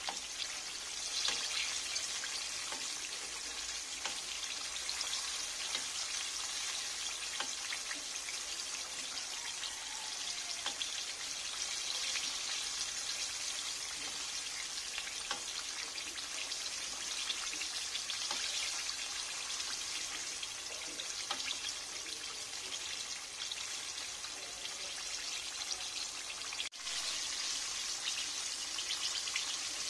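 Hot cooking oil sizzling and crackling steadily around a whole red tilapia deep-frying in a pan.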